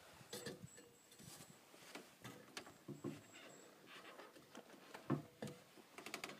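Scattered faint clicks and soft knocks at irregular times, the loudest about five seconds in.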